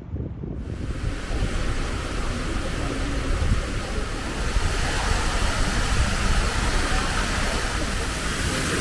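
Steady wind rush and water noise on a moving lake boat, with wind buffeting the microphone; a hiss comes in about half a second in and holds steady.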